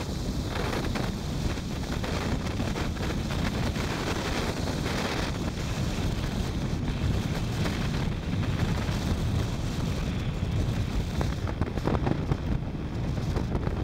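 Wind buffeting the microphone of a camera riding on a moving motorcycle: a steady rushing noise, gusting a little louder near the end.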